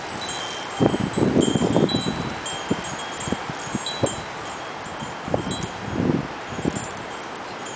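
A rabbit chewing and crunching dandelion leaves and lettuce at close range, in irregular short spells of crackling and rustling. Wind chimes ring in the background, with short high tones at a few fixed pitches.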